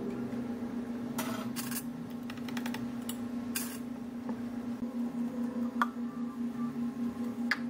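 Drink-making sounds at a cafe counter: a few light clicks and knocks of a steel milk pitcher, glass and plastic cups being handled and set down, over a steady low hum.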